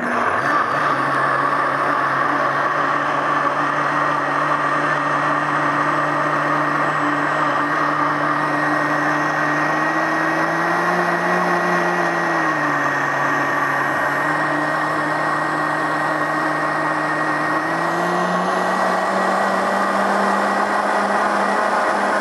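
Tribest Dynapro commercial blender's 2.5-horsepower motor running steadily at low manual speed, blending a melon smoothie. Its pitch rises about ten seconds in, drops back, then rises again and holds for the last few seconds before it stops.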